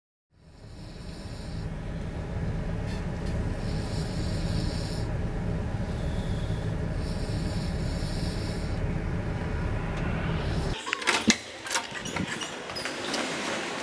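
Steady low engine rumble with a faint hum, fading in at the start, then cut off about eleven seconds in and replaced by a run of sharp clicks and knocks.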